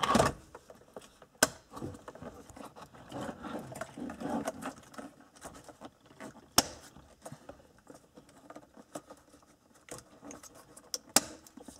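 Plastic wiring-harness connectors being handled and plugged into the back of an instrument cluster: rustling and rattling of plastic and wires, with several sharp clicks spread through.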